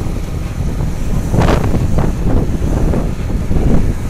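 Wind buffeting the microphone of a camera carried on a moving vehicle, a loud, steady low rumble with a stronger gust about one and a half seconds in.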